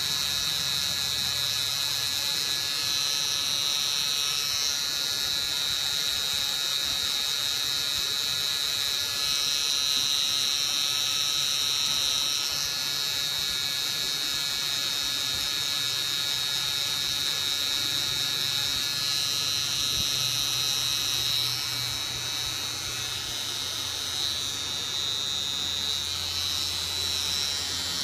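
Permanent-makeup tattoo machine pen buzzing steadily with a high whine, its pitch shifting slightly now and then as it works the skin.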